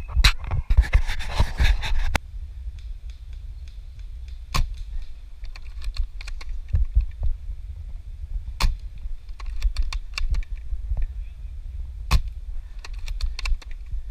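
Airsoft guns firing: sharp single cracks several seconds apart, the loudest about four and a half, eight and a half and twelve seconds in, with lighter clicks between them, over a steady low rumble. A burst of rustling fills the first two seconds.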